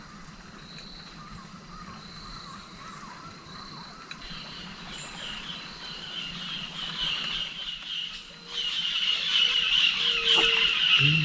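Wild animals calling in a riverside forest. Evenly repeated high calls give way about four seconds in to a dense, chattering chorus that swells louder toward the end.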